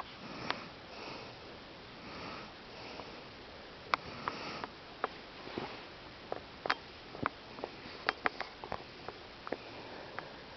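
A sleeping man's breathing: three soft breaths, each about a second long, in the first half, with a dozen or so short, sharp little clicks scattered through.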